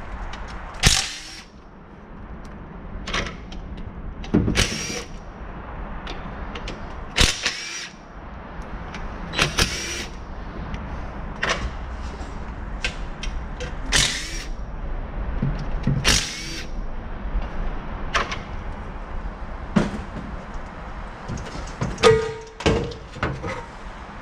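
A cordless drill-driver running the transmission side-pan bolts out in short runs, about one every two seconds, over a steady background hum. Near the end there is a louder scraping sound as the pan comes free.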